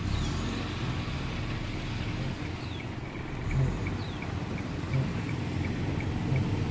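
Outdoor ambience, mostly low wind rumble on the microphone with a few soft thumps. A short, high falling whistle sounds three times, and from about two seconds in a faint, even ticking comes about three times a second.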